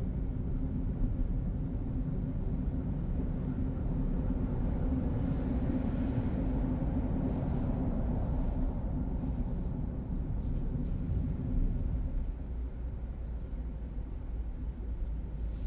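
Steady low road and engine rumble of a car driving through city traffic. A broader swell of traffic noise rises and fades about five to nine seconds in.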